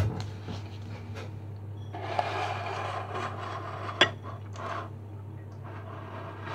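Tableware being handled at a kitchen table: a stretch of rubbing and scraping, then a sharp clink about four seconds in as a drinking glass is set down by a glass bowl, over a steady low hum.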